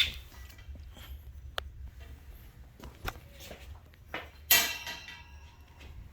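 Knocks and clanks of a shelving rack's poles and shelf being handled and stood upright, with a few separate strikes and the loudest clank about four and a half seconds in, over a low steady hum.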